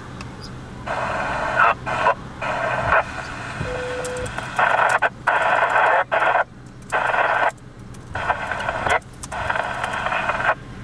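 Two-way amateur radio transmissions: thin, narrow-band radio audio cutting in and out in short bursts, with a brief beep about four seconds in, over a steady low hum.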